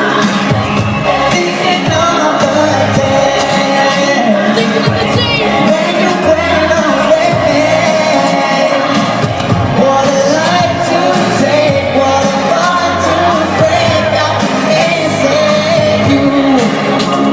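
Live pop song with singing over a loud backing track, played through the PA in a large hall, with weak shouts from the crowd.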